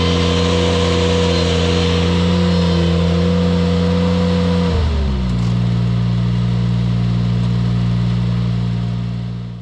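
Ventrac compact tractor engine running the KC220 stump grinder, holding a steady high speed, then dropping to a lower steady speed about five seconds in.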